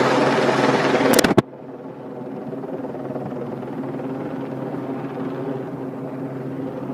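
Low-flying helicopter's rotor and engine drone, loud at first. About a second and a half in it drops off abruptly with a click, then carries on much fainter and steady, slowly building again.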